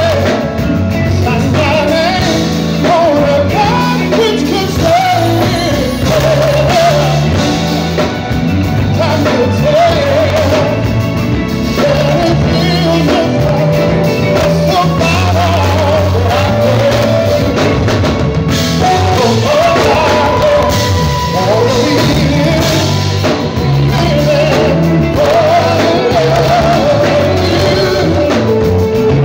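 Live band playing amplified through a PA, with a man singing lead over drums, electric bass and keyboards.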